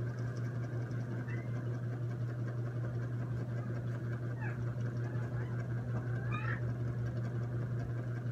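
A steady low hum runs throughout over a faint background hiss. A few brief, high chirping animal calls stand out, about a second in, midway, and near six seconds.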